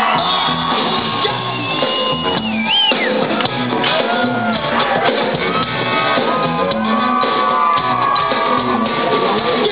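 Rock band playing live, heard from within the audience: electric guitars, drums and a shouted lead vocal, with crowd shouts mixed in.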